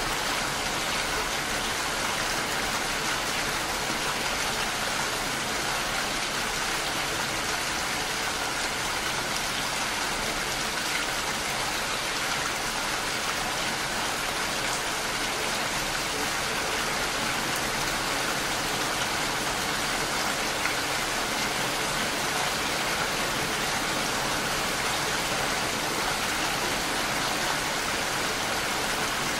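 Steady rain falling, an even hiss that does not change.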